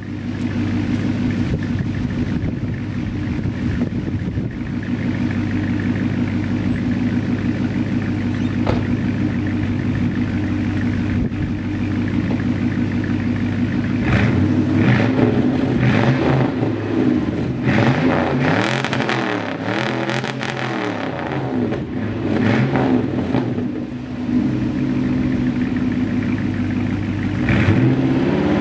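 1991 Toyota Century's V8 running through newly fitted side-pipe exhausts: a steady idle for about half the time, then revved in several blips, the pitch rising and falling, settling back to idle, and revved again near the end.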